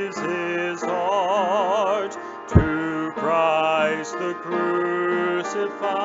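Hymn singing: slow held notes with a wavering vibrato, phrase after phrase. About two and a half seconds in comes a single sharp thump, the loudest sound here.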